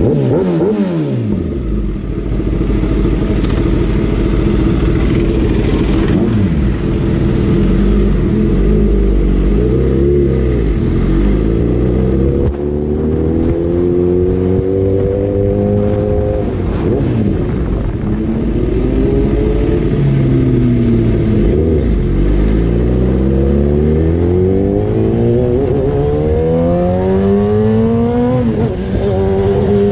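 Kawasaki ZX10R's inline-four engine through an Arrow slip-on exhaust, ridden hard. The pitch climbs again and again as it accelerates through the gears, and drops in between as the throttle closes.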